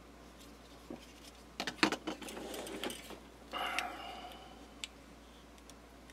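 Small plastic clicks and rattles of a toaster's wire harness and connectors being handled, with a quick cluster of sharp clicks about two seconds in and a brief scraping rustle a little before four seconds.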